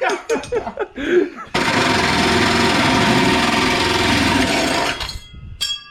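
MIG welder running a bead for about three and a half seconds: a loud, steady buzzing crackle that starts suddenly after a moment of talk and cuts off abruptly.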